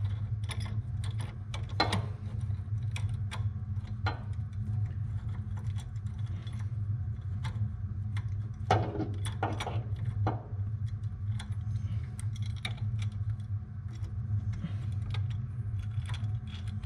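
Light irregular metal clicks and clinks as a master cylinder brace and strut tower bolt are handled and threaded in by hand, with a few louder clinks about 2 s and 9 s in, over a steady low hum.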